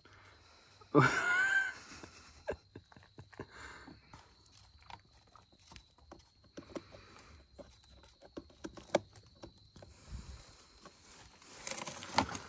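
Scattered light clicks and knocks of hands working on a Westinghouse 2500 W portable generator and handling its plastic side cover, with a rustling clatter near the end. A short vocal cry comes about a second in, and a faint steady high tone runs behind.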